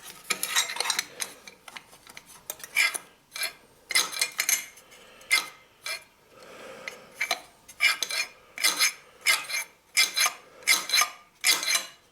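Metal parts being worked by hand, scraping and clinking in a run of short strokes, irregular at first and then about two a second.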